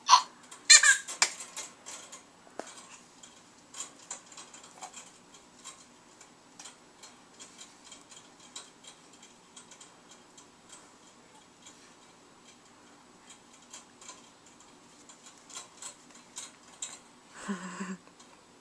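A baby squeals with excitement about a second in, then light, irregular clicks and squeaks from the Jolly Jumper baby jumper's strap and spring as she bounces in it. A short vocal sound comes near the end.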